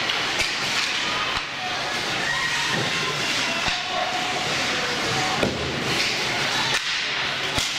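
Ice hockey play: a steady hiss of skates scraping on the ice, with sharp clacks of sticks and puck every second or so, under distant voices.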